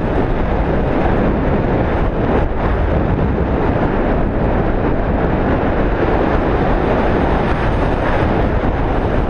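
Steady, loud wind rushing over the microphone in flight.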